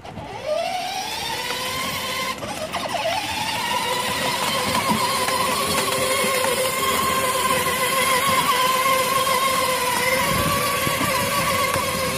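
Children's battery-powered ride-on toy quad driving, its electric motor and gearbox whining. The whine rises in pitch as it pulls away, dips briefly about two and a half seconds in, climbs again, then holds steady.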